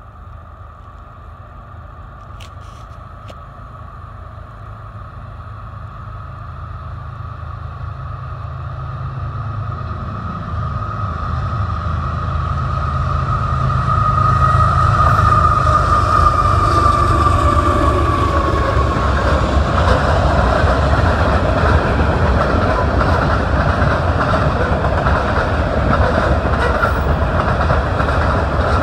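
Freight train led by two CSX diesel-electric locomotives approaching and passing, the engine rumble growing steadily louder. A steady whine drops in pitch as the locomotives go by, about halfway through. Loaded covered hopper cars then roll past with a rhythmic clickety-clack of wheels over the rail joints.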